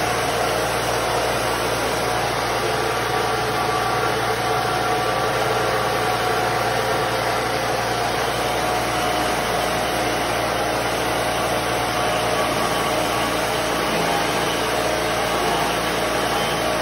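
Rosehip pulping machine running steadily with a low motor hum as cooked rosehips are worked through its stainless-steel drum into pulp.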